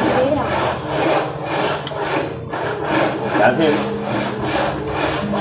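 Acoustic guitar strummed in a steady rhythm, about three strokes a second. Each stroke is a scratchy brush across the strings over low notes that keep ringing.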